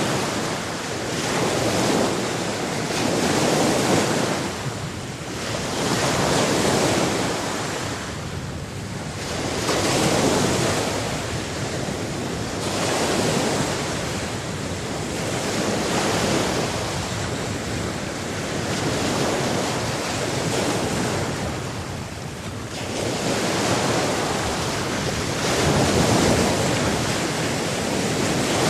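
Sea surf: waves breaking and washing in, the noise swelling and ebbing every three to four seconds.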